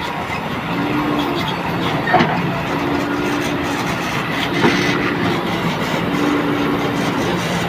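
A JCB 3DX backhoe loader's diesel engine runs under load while digging and loading, with a hydraulic whine that comes and goes. Two sharp knocks come about two seconds and four and a half seconds in.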